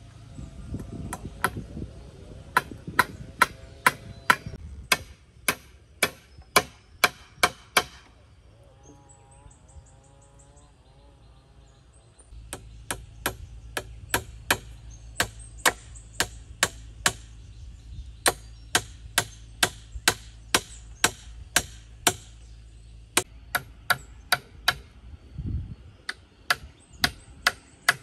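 Claw hammer driving nails into wooden poles: runs of sharp strikes, about two a second, with a pause of a few seconds about a third of the way in.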